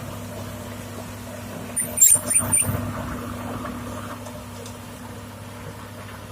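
Heavy-equipment diesel engine running steadily at idle, with a short clatter of loud knocks about two seconds in.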